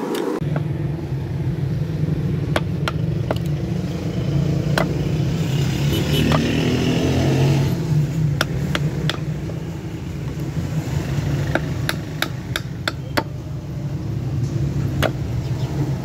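Hammer striking a steel chisel into a wooden knife-handle block: sharp knocks at irregular intervals, sometimes in quick pairs or threes. Under them runs a steady low engine-like rumble.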